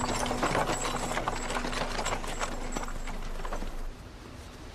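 Horse hooves clip-clopping as the horse draws a buggy, with the buggy rattling along, stopping about four seconds in.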